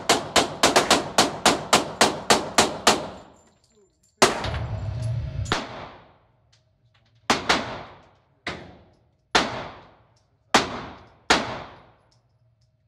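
Handgun fire echoing in an indoor shooting range: a rapid string of shots, about four to five a second, that stops about three seconds in. Then a bang with a second-long rush of noise, followed by single shots about a second apart.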